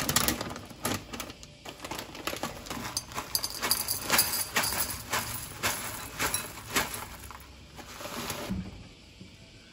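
Plastic granola bag crinkling as it is handled and opened, then granola clusters poured from it rattling into a ceramic bowl as a dense run of small clicks, which stops near the end.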